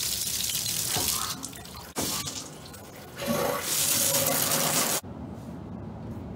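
Water running in a bathtub shower, pouring from the tub spout and spraying from the overhead shower head into the tub as a loud steady hiss. It stops abruptly about five seconds in, leaving a much quieter steady background with a low hum.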